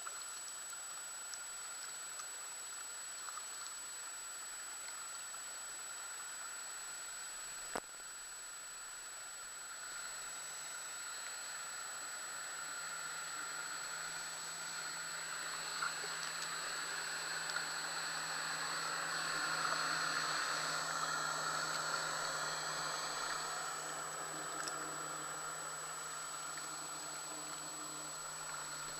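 Motorboat running on a plane, a faint engine drone and hiss that slowly grows louder, peaks about two-thirds of the way through, then eases off. A single sharp click about eight seconds in.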